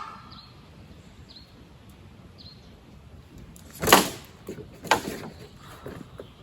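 Camping gear knocking as it is handled and packed up: one sharp knock about four seconds in, then a lighter one about a second later. Before them, a few faint high bird chirps.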